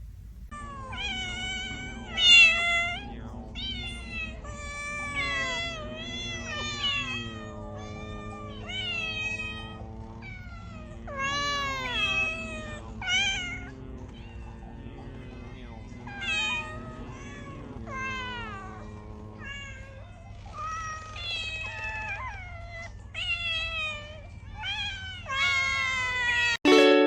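Cat meowing again and again, call after call with bending pitch, over a steady low hum.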